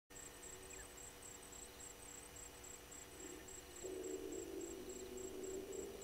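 Faint insect chirping, a steady high pulse repeating about three times a second. About four seconds in, a louder low hum joins.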